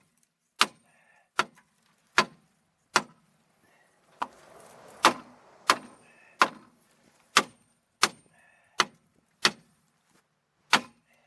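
Repeated hard strikes on metal, about a dozen blows spaced a little under a second apart, some with a short ring. This is a hammer pounding on a 2002 Chevy Malibu's seized rear wheel to free it.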